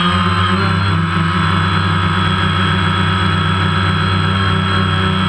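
DJI Phantom quadcopter's motors and propellers running with a steady hum and whine, heard from the GoPro mounted on the drone. The pitch wavers slightly at first, then holds steady as it hovers.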